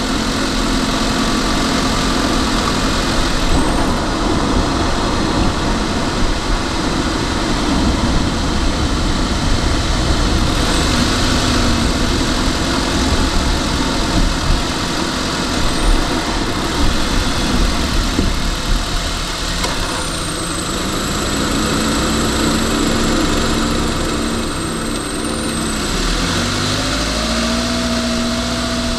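Car's engine and tyre-on-road noise heard from inside the cabin while driving, a steady rumble. A faint low hum steps up and down in pitch in the last several seconds.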